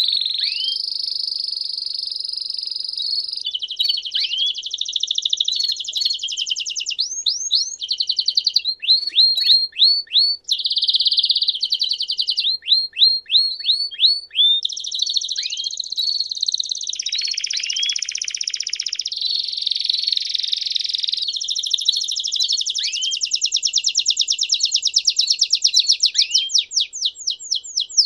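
Domestic canary singing one long, unbroken song of rolling trills that change every few seconds, broken by runs of short downward-sweeping notes, a few per second, the longest run near the end.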